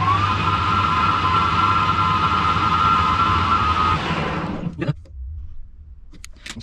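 Harrison lathe running with its chuck spinning, a high whine that finishes rising in pitch just as it comes up to speed, then holds steady. About four seconds in it is switched off and runs down, quiet within a second, followed by a few light clicks.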